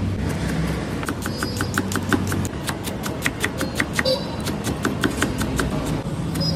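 Kitchen knife rapidly chopping green capsicum and then onion on a chopping board, quick even knocks of the blade against the board at about five a second, with a low steady hum beneath.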